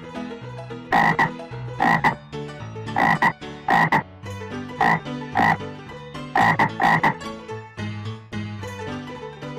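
Frog croaking sound effect: about nine short, loud croaks spaced roughly half a second to a second apart.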